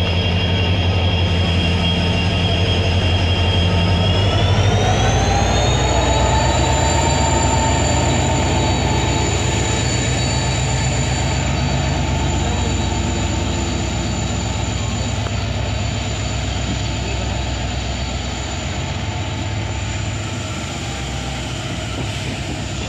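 WDP4D diesel locomotive's EMD engine pulling away close by. A deep rumble comes with a high-pitched whine that rises about four to six seconds in and then holds steady. Passenger coaches follow, rolling past on the rails and fading slightly near the end.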